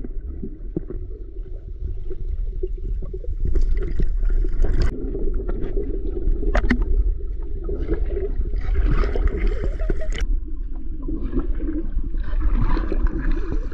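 Muffled underwater sound from a GoPro held beneath a swimming pool's surface: a dull, steady low rumble with bubbling and gurgling from swimmers breathing out, and three brief stretches of brighter bubble hiss.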